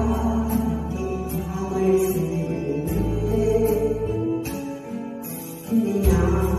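Background music with sustained bass notes and a steady, regular beat of light high-pitched percussion.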